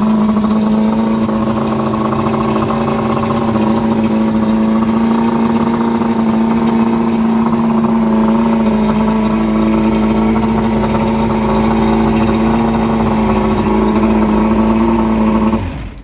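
Johnson 88 hp V4 two-stroke outboard running steadily on its first run of the season, its pitch holding level, then cutting off abruptly near the end.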